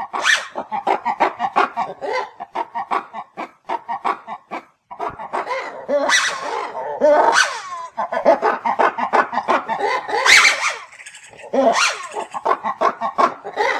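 Lemur calling: rapid runs of loud barking, chattering calls with shriller peaks, breaking off briefly about five seconds in and again near eleven seconds.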